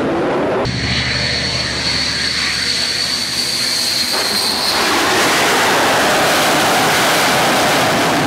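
Twin jet engines of a MiG-29K fighter running on a carrier deck: a steady high-pitched whine over a rushing roar, which turns into a fuller, slightly louder roar from about four seconds in.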